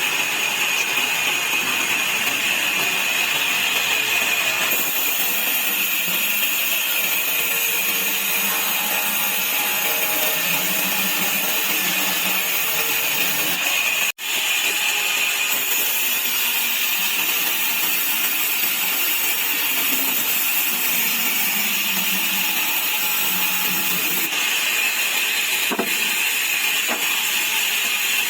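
Sawmill saw running steadily through wood as slats are cut, a loud continuous mechanical whine and hiss. The sound cuts out for an instant about halfway through.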